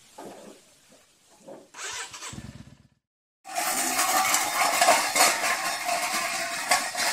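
Yamaha XVS400 Drag Star's V-twin engine running loudly and steadily for the last few seconds, after a short low rumble about two seconds in and a brief break.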